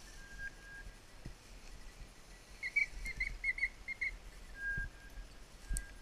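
High-pitched whistle tones: a quick run of about seven short pips in the middle, with a few longer steady notes before and after.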